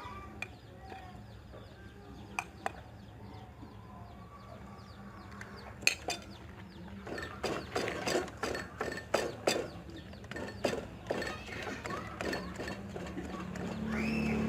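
Irregular clinks and knocks of kitchen utensils, sparse at first and then coming thick and fast for several seconds past the middle, over a low steady hum, with a few faint chirping calls.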